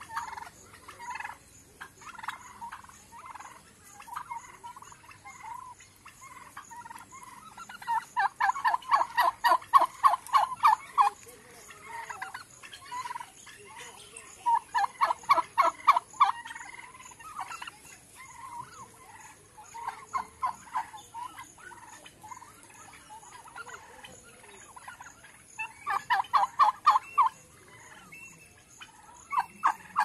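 Domestic turkey toms gobbling: three loud, rapid rattling gobbles spread through, each a second or more long, with a softer gobble between them and faint short calls in the gaps.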